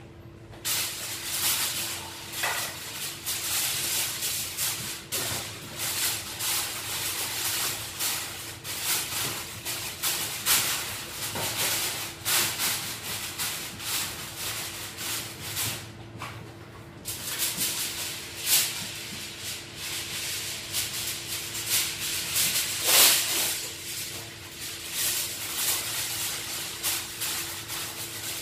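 Aluminium foil being folded and crumpled by hand around fish for steaming: a continuous crinkling rustle with irregular louder crunches, the loudest about 23 seconds in. A faint steady hum lies underneath.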